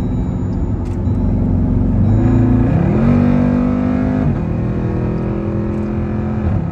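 Dodge Durango SRT's V8 engine pulling under acceleration: the revs climb about two seconds in, hold higher for a second or so, then fall back a step and run steady before easing off near the end.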